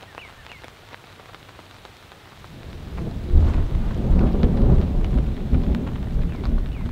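Thunder rumbling: about two and a half seconds in, a low rolling rumble builds up and carries on, over light rain pattering.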